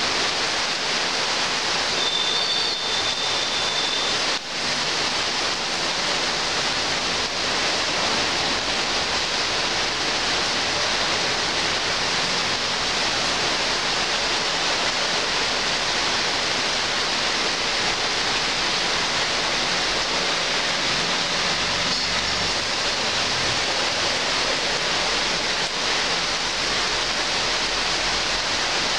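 Heavy rain pouring steadily on tree foliage: an even, unbroken hiss. About two seconds in, a brief high steady tone sounds for about two seconds.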